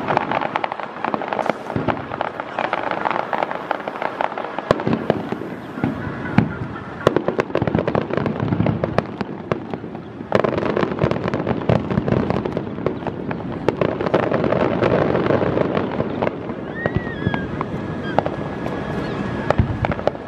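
Aerial fireworks bursting and crackling in a dense, continuous stream of many small reports, growing suddenly louder about halfway through.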